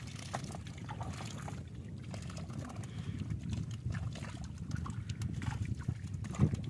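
Hands groping and sloshing through shallow muddy water and wet mud while hand-fishing, with small wet clicks and squelches and one louder thump near the end.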